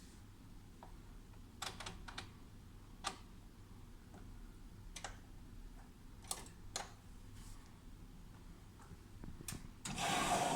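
Washing machine making scattered light clicks over a low hum, then near the end a loud steady hiss starts.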